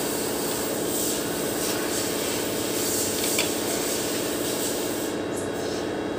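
Stick-welding machine humming steadily while idle between welds, with a hissing high haze that falls away about five seconds in.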